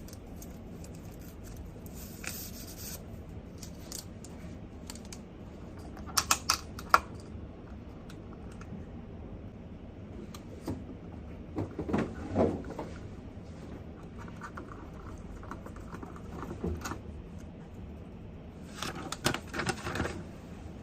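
Small desk sounds of a person studying: scattered taps, clicks and rustles of things being handled, over a steady low room noise. A quick run of about four clicks comes about a third of the way in, with louder bursts of handling noise near the middle and again near the end.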